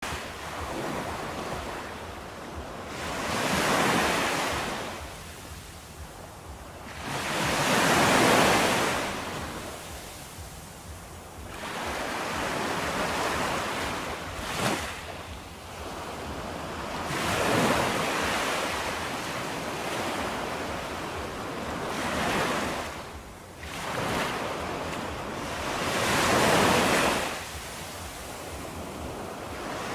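Ocean surf: waves breaking and washing back, swelling and ebbing about every four to five seconds. A brief sharp hit sounds about halfway through.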